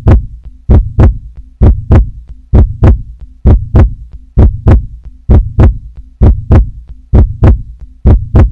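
Heartbeat sound effect: a steady lub-dub of paired low thumps, a little under one pair a second.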